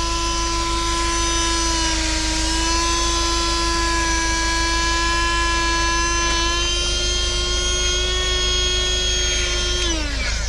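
Small electric motor running with a steady whine that creeps slightly higher in pitch, then winds down and stops near the end.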